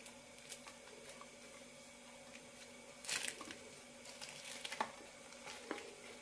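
Faint rustling and crinkling of a steamed, wilted banana-leaf wrapper being untied and unfolded by hand. There is a brief louder rustle about three seconds in, more rustling a second later, and a couple of soft ticks near the end.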